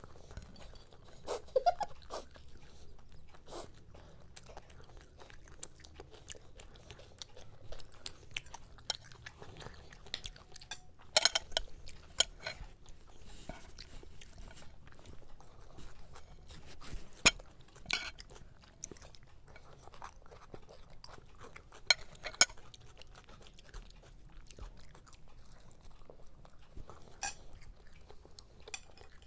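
Chewing and crunching from two people eating crisp fried Mughlai paratha and breaded chicken chop, with a few sharp crunchy bites or clicks scattered through, the loudest near the middle.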